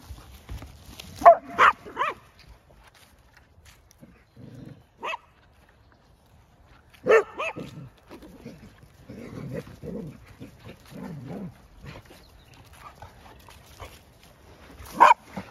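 Dogs barking in short, sharp barks: three in quick succession about a second in, single barks around five and seven seconds, and another near the end.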